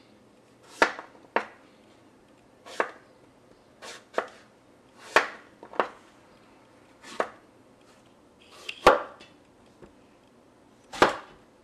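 Kitchen knife cutting eggplant pieces into strips on a plastic cutting board: about ten separate cuts at uneven intervals, each a sharp knock of the blade against the board.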